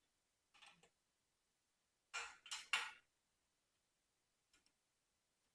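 Metal hardware clinking while a railing post is fixed down with anchor bolts: a couple of faint clinks, then three louder sharp clinks about two to three seconds in, and one faint clink near the end.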